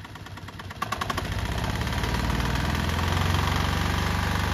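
Hatz fiPMG diesel DC generator starting: the engine fires about a second in and builds up to a steady run.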